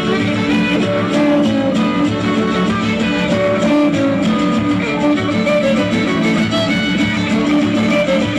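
Mexican regional folk dance music with violins and strummed guitars over a steady bass beat.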